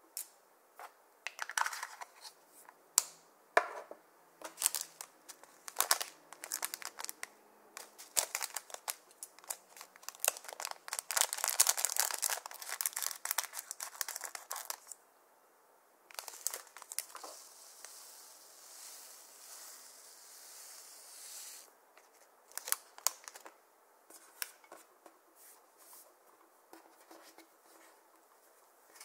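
A small plastic bag of iridescent tube beads being crinkled and snipped open with scissors: many sharp crackles and snips, thickest about halfway through. Then a steady hiss for several seconds as the beads pour out, and a few more crackles.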